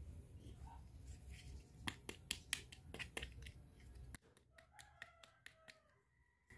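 Small pink plastic doll-vanity pieces clicking and tapping together as they are handled and fitted, with a quick run of sharp clicks about two seconds in, then only faint clicks.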